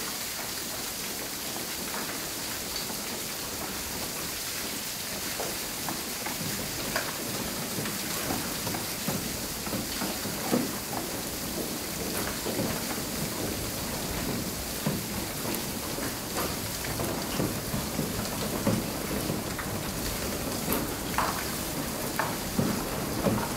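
Water splashing and dripping: a dense steady hiss full of small drops and splashes, which grow louder and more frequent in the second half.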